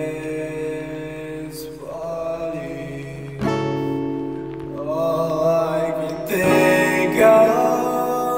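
Music from a song: sustained chords that change every second or two, with a wavering higher melody line in the second half.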